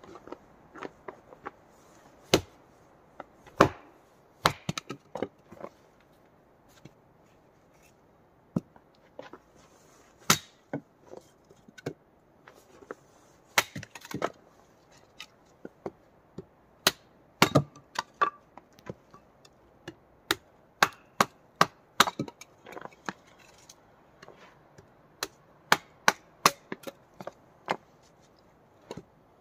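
Dry wood being chopped and split into kindling: sharp, irregular cracks and knocks, some in quick clusters, with splintering.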